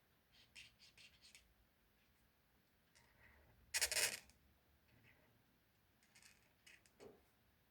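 Faint scratching and rubbing from craft materials being handled by hand, with one louder, brief scratchy rasp about four seconds in and a few small clicks near the end.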